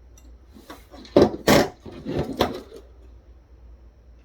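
Handling of the taken-apart shipping scale's parts: a few knocks and clatters with some scraping, the loudest about one and a half seconds in.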